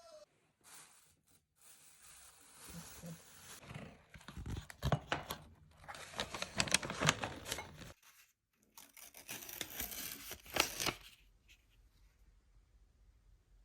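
Packaging being torn open and crinkled by hand: a run of crackling with sharp rustles, loudest in the middle, stopping briefly about eight seconds in, then resuming before it fades.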